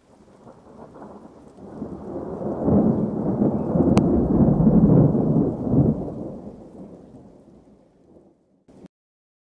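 A deep rolling rumble that builds to a peak about five seconds in, then dies away, with one sharp click near the middle.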